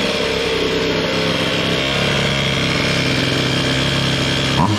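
Zenoah G23LH two-stroke engine with a high-compression head kit and an expansion-chamber pipe, running steadily on the stand, with a quick blip of the throttle near the end.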